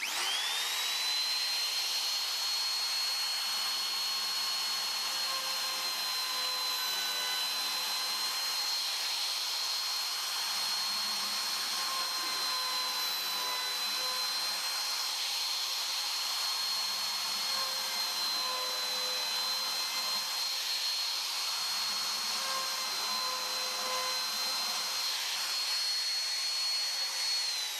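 Compact trim router with a bearing-guided round-over bit spinning up to a steady high whine and cutting, rounding over the edges of holes in a plywood workbench top. The pitch dips slightly now and then as the bit takes load.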